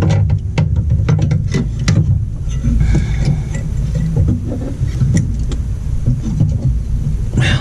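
Scattered small clicks and knocks of hands and tools working the fuel filter and its line fittings, over a steady low background hum that is the loudest thing throughout.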